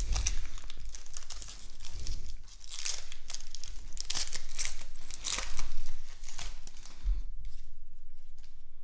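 Plastic wrapper of a Donruss Elite football card pack being torn open and crinkled by hand, in a series of crackly bursts that are loudest about five and a half seconds in and die down near the end.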